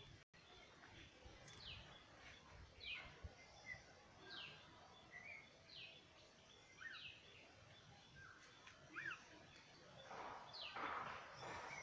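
Faint bird calls: a short, high chirp sliding downward, repeated about once a second, with a few smaller chirps between. A short burst of noise comes about ten seconds in.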